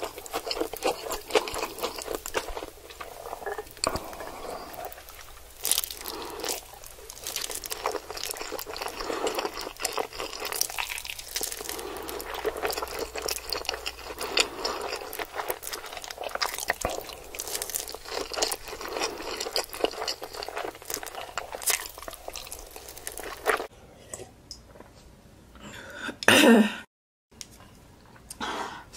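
Close-miked eating: spicy instant noodles slurped and chewed wetly, with crunchy bites of crisp hash brown. Near the end the sound drops to quieter chewing, broken by one brief loud pitched sound and a sudden cut-out.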